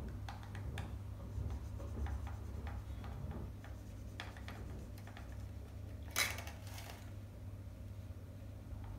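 Felt-tip marker drawing on a paper plate: short taps and scratchy strokes of the tip on the paper, then one louder scrape of about half a second just after six seconds in.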